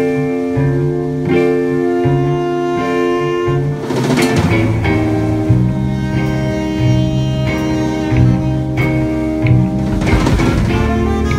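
Live band music: a saxophone, an electric bass and an electric guitar playing together through amplifiers, with sustained notes over a moving bass line.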